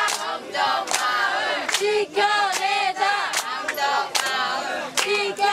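A crowd of protesters singing together in unison, clapping their hands to the beat about every half second.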